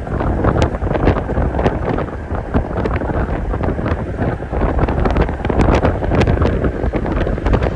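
Wind buffeting a phone's microphone: a loud, steady rumble broken by irregular crackles.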